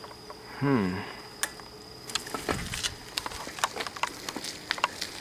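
A short hummed vocal sound about a second in, then scattered taps and ticks of someone walking on pavement, over a thin steady high-pitched tone.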